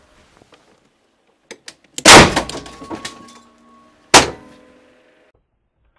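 A Nokia 6230 mobile phone exploding as a 50,000-amp pulse from a 4-kilojoule capacitor bank is dumped through it: a very loud bang about two seconds in, with a metallic ringing that dies away over the next second or so. A second sharp crack follows about two seconds later, and a few faint clicks come just before the bang.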